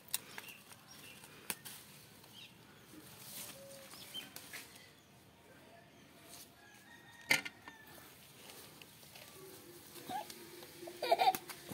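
Rustling of bitter gourd leaves and vines being handled, with a few scattered sharp clicks and some faint short chirps; the loudest clicks come about seven seconds in and near the end.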